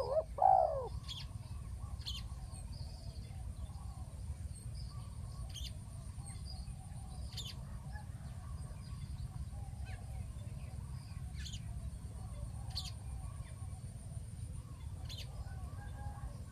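Spotted doves cooing: one loud call right at the start, then fainter cooing repeated. Short high bird chirps come every second or two over a steady low rumble.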